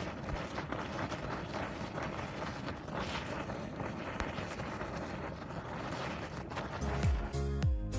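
A boiling geothermal hot spring bubbling and hissing at its vent, a dense, irregular gurgle with steam.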